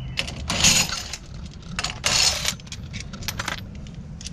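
Metal parts clinking and rattling: sharp clicks, with two louder clattering bursts about half a second in and about two seconds in.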